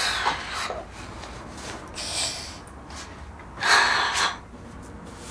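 A girl sighing and breathing out heavily, three breathy exhalations a second or two apart.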